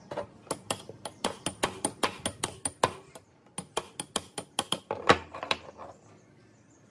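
Small hammer tapping rapidly on the steel handle spindle of a hand breast drill's crank, about five light metallic taps a second with a bright ring. There is a short break about three seconds in, then another run with one louder blow near its end, and the tapping stops about a second before the end.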